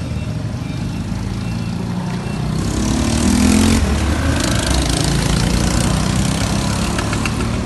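1970 Vespa Super's single-cylinder two-stroke engine running after its carburetor was cleaned. It is idling, and the throttle is blipped about three seconds in.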